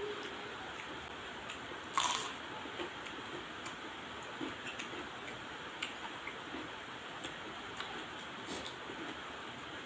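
A person eating: one loud crisp bite about two seconds in, then quiet chewing with scattered small clicks and mouth sounds over a steady hiss.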